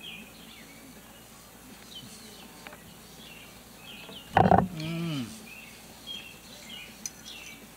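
Birds chirping and singing steadily in the background. About four and a half seconds in, one short loud throaty sound that falls in pitch.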